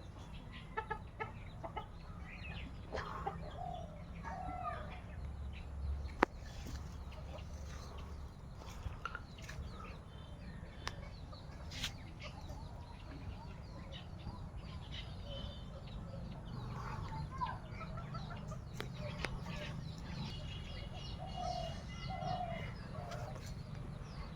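Chickens clucking now and then, short scattered calls over a steady low hum, with a few sharp clicks.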